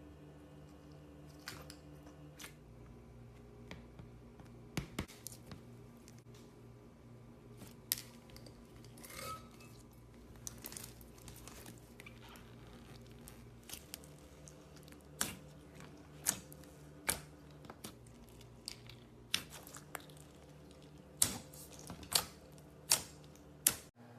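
Clear slime being handled, giving off scattered sharp sticky clicks and pops, with four louder pops close together near the end. A steady low hum runs underneath.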